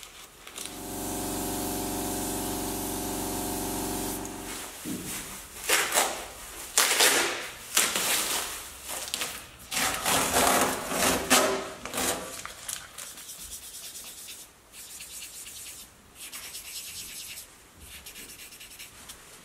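A machine hums steadily for about four seconds and stops abruptly. Then a pad is rubbed by hand over the painted steel body panel in irregular strokes, loudest in the middle and fainter toward the end.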